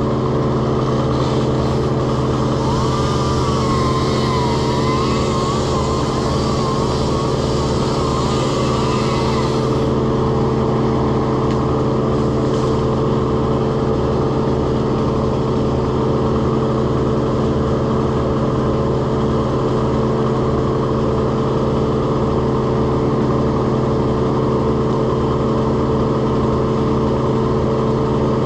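An engine running steadily at one constant speed, with an even low pulse beneath it. From about three seconds in, a fainter wavering tone rises and falls over it for about six seconds.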